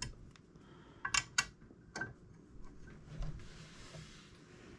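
Monitor-mount hardware clicking and tapping while it is tightened by hand: four sharp clicks in the first two seconds, then a brief rubbing, scraping noise about three seconds in.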